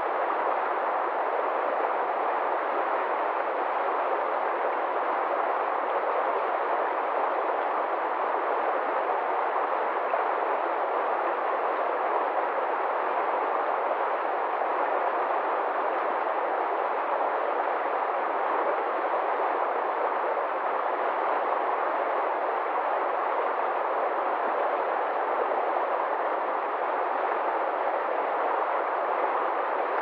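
Swollen, muddy river rushing over shallows: a steady, even rushing noise that never changes, with no deep rumble beneath it.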